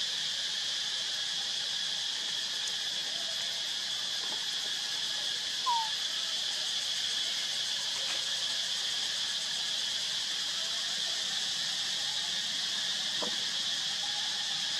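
Steady, continuous high-pitched drone of an insect chorus. A single short falling chirp stands out about six seconds in.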